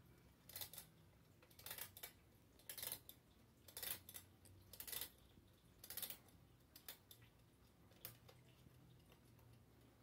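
A knob on the back of a Rubnick wall clock being turned by hand in short grating strokes, about one a second, eight in all, the last ones briefer and fainter.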